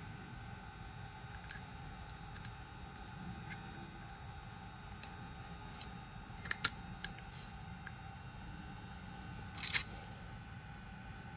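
Small metal parts and hand tools clicking and clinking on a workbench while a rotary hammer's gearbox is worked on. Scattered light clicks, sharper clinks about six seconds in and a short rattle near the end, over a faint steady hum.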